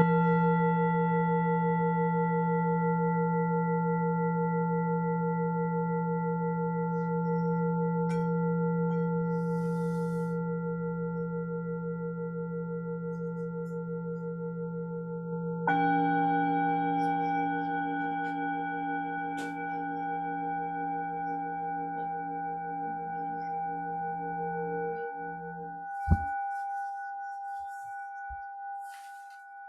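Singing bowls ringing. A low bowl hums with a slow wobble in its tone; about halfway through, a second, higher bowl is struck and rings along with it. Near the end the low bowl is stopped short with a knock, and the higher bowl fades on alone.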